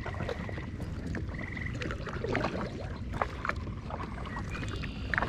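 Kayak paddling: a double-bladed paddle dipping and splashing in still pond water stroke after stroke, with drips and small knocks of the paddle, over a steady low rumble.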